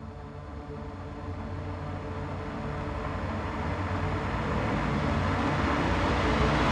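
A low, humming, drone-like sound effect that swells steadily louder throughout, building like a cinematic riser.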